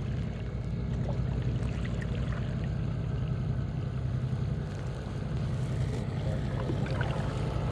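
A boat motor running with a steady low hum, with light trickles and drips of water around a sea kayak.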